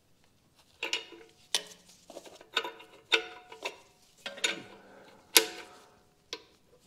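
Ratchet wrench clicking and clinking against the stainless exhaust while an oxygen sensor is tightened into the catalytic converter. It makes a series of sharp metallic clicks, some with a brief ring, about one every half second to a second.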